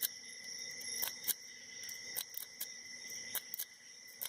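Lock pick rake being worked back and forth in the keyway of a five-pin Commando Lock padlock with security pins, giving irregular sharp clicks as it scrapes over the pins. The picker feels the lock going into a false set.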